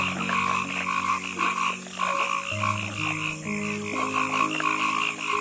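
Frogs calling in a dense pulsing chorus, about four pulses a second, with a high pulsing buzz above them, over gentle background music of slow held notes.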